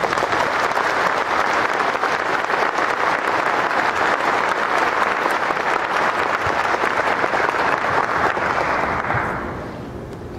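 Audience applauding with dense, steady clapping that dies away about nine seconds in.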